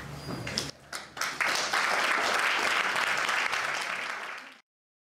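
Audience applauding, starting about a second in and cutting off abruptly near the end.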